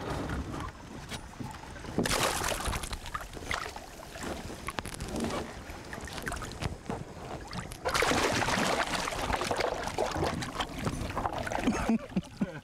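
Water splashing and sloshing at the side of a small boat as a man plunges his hands into the river to grab a caiman. It comes in two noisy bursts, one starting suddenly about two seconds in and a longer one from about eight seconds in.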